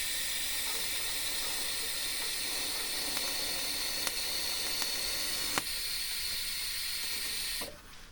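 TIG welding arc on stainless steel, a steady hiss with a few faint ticks, cutting off near the end as the arc is broken.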